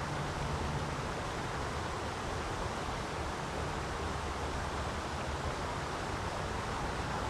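Steady rushing of water at a lake dam, even and unbroken.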